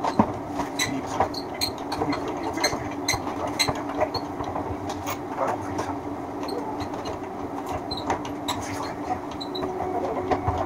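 Wire stripping machine running with a steady hum, rattling and clicking irregularly as copper wire feeds through it.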